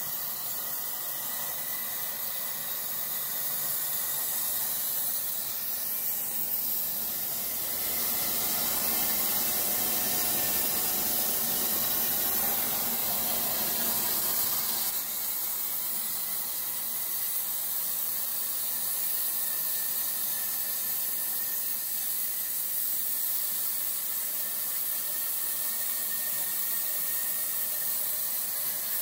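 CNC plasma torch on a Fastcut G6 table cutting steel plate: a steady, loud hiss of the plasma arc and its gas jet. It grows fuller and louder from about 8 to 15 seconds in, then drops back suddenly.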